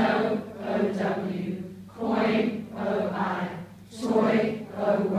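A large group of adults chanting phonics keywords and their letter spellings in unison, one short word or spelling roughly every second.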